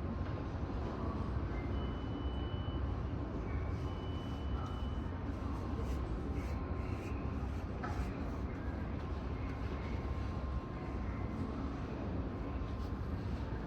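Airport ambience: a steady low rumble of aircraft and apron machinery, with two brief faint high tones about two and four seconds in.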